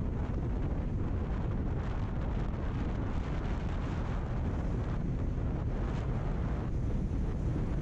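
Steady wind rush on the microphone of a motorcycle moving at road speed, with engine and road noise underneath.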